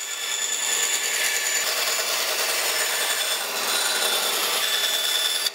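Delta benchtop bandsaw cutting steadily through plywood: the blade's cutting noise runs over a steady high whine from the saw.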